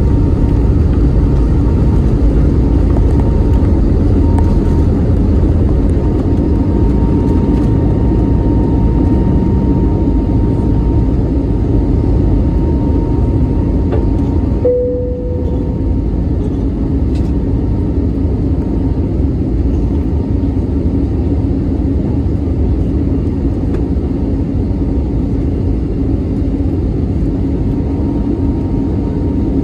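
Cabin-side sound of an Airbus A320neo's CFM LEAP-1A turbofans at takeoff thrust, a loud, steady rumble with a faint whine, as the jet leaves the runway and climbs. About halfway through a brief tone sounds, and after it the noise is slightly quieter.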